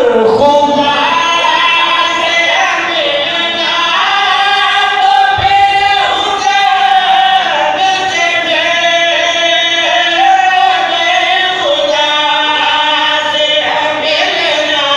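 Men's voices singing a Shia devotional qasida together in long, held melodic lines, amplified through a microphone.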